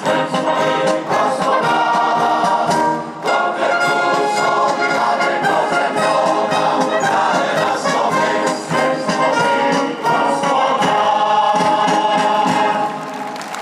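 Choir singing with an orchestra and brass. A full chord is held near the end before the sound drops away.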